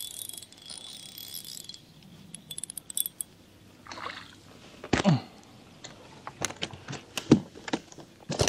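Fishing reel winding in, fading out in the first two seconds, then a hooked fish splashing at the surface about four seconds in. A run of sharp clicks and knocks follows as the fish is brought to the boat and handled.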